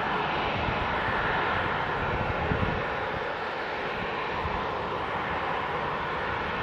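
Boeing 737-800's CFM56 jet engines running at idle with a steady whine and rush while the airliner is pushed back by a tug.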